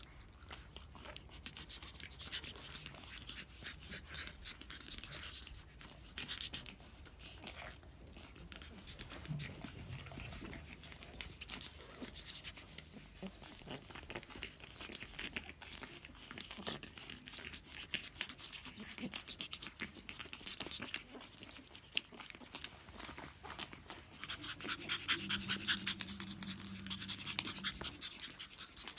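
Pug puppies playing and wrestling: soft scuffling and snuffling with many small clicks. Near the end come a brief low puppy vocal sound and louder panting.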